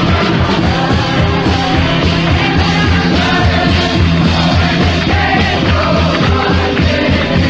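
A group singing along to lively, rhythmic music with a steady beat.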